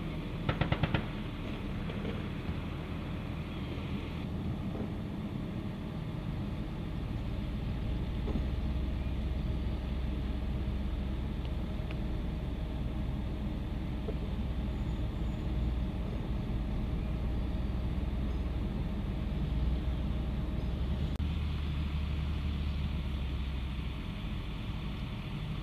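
A short burst of about five shots from a vehicle-mounted M2 .50-calibre heavy machine gun, heard from a distance about a second in. After it comes the steady low rumble of a military tactical vehicle's engine as it drives the range road.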